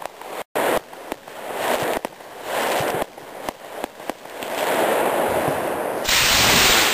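Hissing and crackling with scattered sharp pops, then about six seconds in a loud rushing roar as a black-powder skyrocket's motor lifts it off the launch stand.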